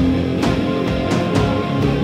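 Live rock band playing: electric guitars, keyboard and drum kit, with a drum hit about once a second over held notes.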